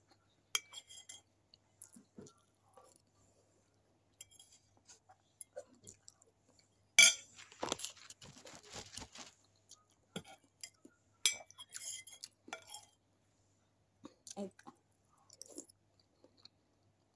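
A metal spoon clinking and scraping against a stainless steel bowl, with chewing between. The loudest clink comes about seven seconds in, followed by about two seconds of scraping; smaller clinks come about half a second, eleven and twelve and a half seconds in.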